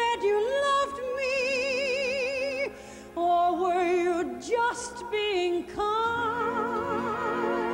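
A woman singing in a trained soprano voice, holding long notes with a wide, even vibrato and pausing briefly for breath between phrases.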